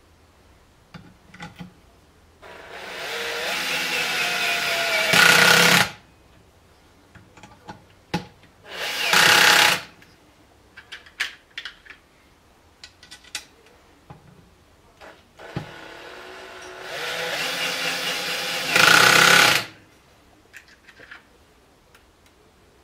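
Cordless drill-driver running in three spells, driving screws into the trainer's aluminium housing. The first and last spells run a few seconds and end in a brief louder burst; the middle one is short. Light metal clicks of screws and bits being handled come in between.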